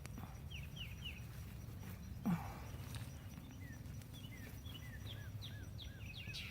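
A shovel thuds once into garden soil about two seconds in, the loudest sound here. Around it a songbird chirps in short repeated slurred notes, with a steady low outdoor rumble underneath.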